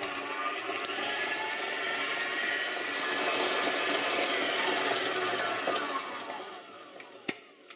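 Electric stand mixer running at high speed, its paddle beating butter in a stainless steel bowl: creaming the butter until light and fluffy. The motor's whine falls and fades near the end, followed by a sharp click.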